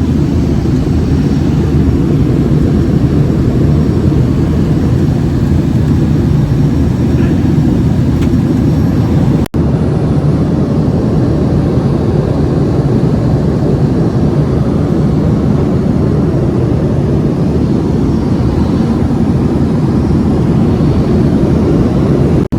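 Steady low roar of a passenger airliner's cabin in flight: engine and airflow noise. The sound cuts out for an instant about nine and a half seconds in.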